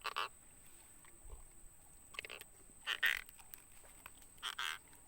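Frogs calling: four short croaks spread unevenly over a few seconds, the loudest about three seconds in, over a steady high thin tone.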